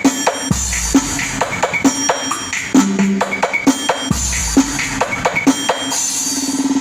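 Music with a drum beat and deep bass notes, building to a fast run of repeated drum hits near the end.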